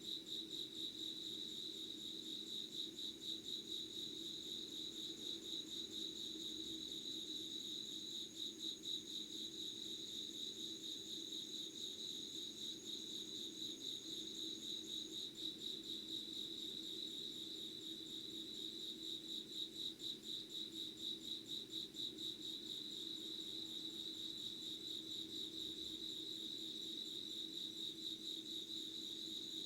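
Insects singing in a steady, fast-pulsing trill. A second, higher trill drops out about halfway through.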